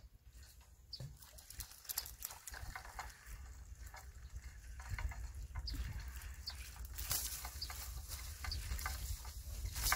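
Rustling and scattered clicks of handling noise as the angler's shirt and fishing gear brush close to the camera, over a low outdoor rumble, likely wind on the microphone, that grows louder about halfway through.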